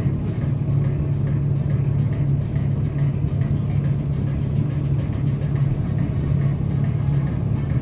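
Steady drone of a moving bus heard from inside the cabin: a constant low engine hum under tyre and road noise, with no change in speed.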